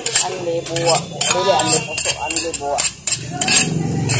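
Tableware clinking and clattering on a dining table in a run of short, sharp clinks, with voices chatting underneath.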